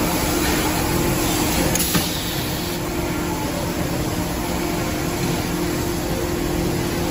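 Factory machinery running: a steady mechanical hum over a hiss of shop noise, with one sharp knock about two seconds in.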